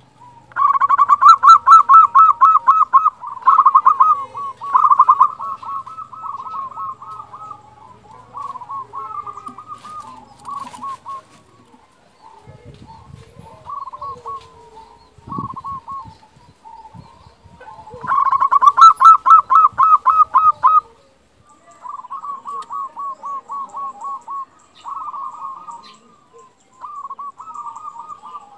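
Zebra dove song: rapid staccato cooing trills, loudest in two long bouts at the start and about 18 seconds in, with quieter cooing phrases in between. A few soft low knocks fall in the middle.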